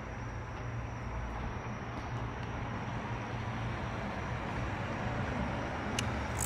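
Steady rumbling background noise with a low hum, and a faint click about six seconds in.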